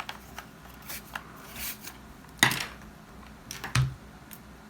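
Parts of a Dyson vacuum's roller head clicking and knocking as they are handled and worked apart: a few separate knocks, the loudest about two and a half seconds in.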